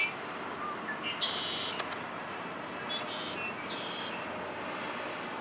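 Male red-winged blackbird singing: one harsh, trilled song phrase about a second in, then a few short, higher notes around three seconds in, over a steady hiss.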